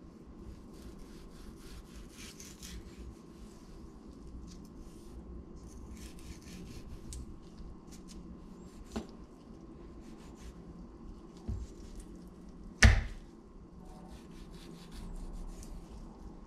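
Chef's knife slicing through a raw chicken breast on a wooden cutting board: soft scraping and cutting strokes, with a few knocks of the blade against the board, the loudest one sharp and late on.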